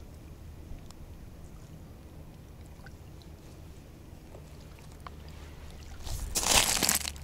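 Faint small clicks of fingers working a hook leader and metal snap swivel over a low steady rumble, then a loud rustling burst about six seconds in as the camera wearer moves.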